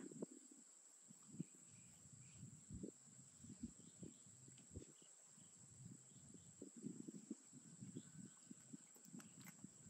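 Near silence, with faint irregular low rumbles and a few soft clicks near the end.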